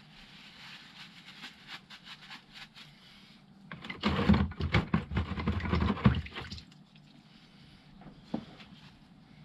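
Liquid sloshing and splashing for about three seconds in the middle, with light clicks of handling before it.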